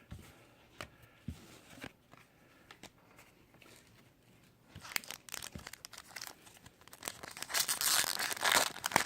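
A trading-card pack wrapper being torn open and crinkled by hand: a few faint clicks at first, then crinkling and tearing that starts about halfway through and grows louder near the end.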